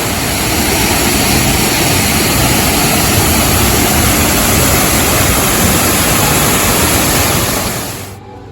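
Loud, steady rushing noise, even across high and low pitches with an unsteady low rumble, that cuts off abruptly near the end.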